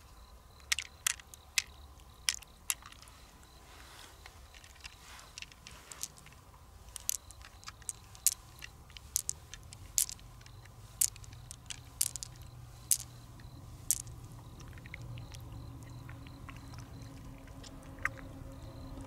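Pearls being picked out of a freshwater mussel's flesh and gathered in a palm: small, sharp, irregular clicks of the pearls knocking against each other and the shell, with wet handling of the mussel flesh.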